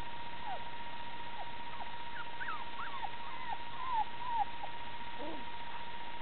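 Golden retriever puppies squeaking: many short, high, bending squeaks, some overlapping, thickest in the first four and a half seconds, with one lower squeak a little after five seconds.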